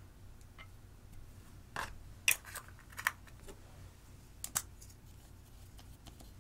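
A handful of sharp clicks and knocks from small plastic makeup containers being handled and set down on a table. The loudest comes about two seconds in, and a quick double click follows a couple of seconds later.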